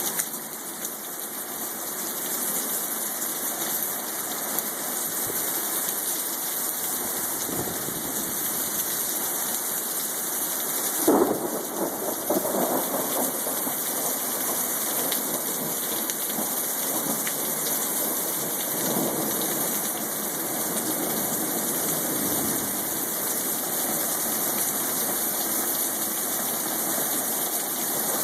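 Thunderstorm: steady rain falling throughout, with a sharp crack of thunder about eleven seconds in that rolls on into rumbling, and fainter rolls of thunder later.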